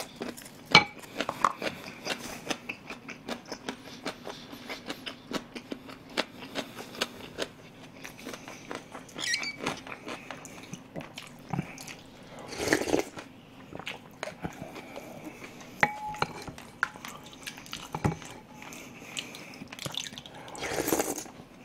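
Close-miked eating of pork and rice soup: chewing with many small wet mouth clicks and the tap of chopsticks on the bowl. Two louder slurps come through, one about halfway and one near the end.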